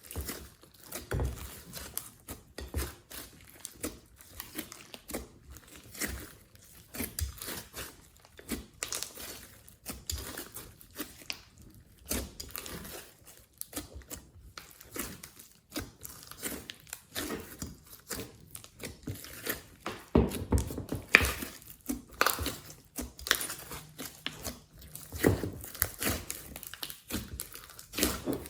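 Glossy slime being squeezed, stretched and folded by hand: sticky, crackling clicks and pops in an irregular stream, thicker and louder after about twenty seconds in.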